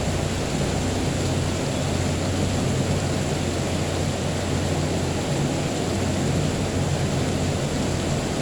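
Steady, unbroken rain noise with a low steady hum underneath and no thunderclap.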